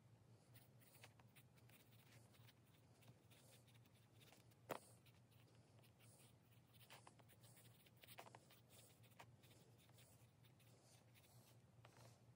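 Faint pencil scratching on notebook paper as words are written, in many short strokes, over a low steady hum. One sharper tap comes about four and a half seconds in.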